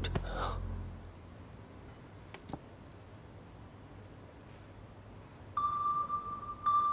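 Drama soundtrack: the low background score fades out about a second in, leaving a quiet stretch with a couple of faint clicks. Near the end a single steady high-pitched ringing tone sets in and holds.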